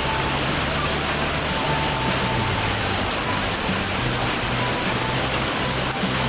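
Heavy rain pouring down in a steady, dense hiss, with background music playing low underneath.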